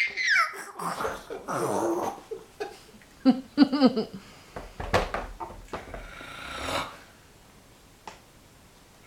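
A man making fake snoring sounds: a run of exaggerated snorts and rasping breaths.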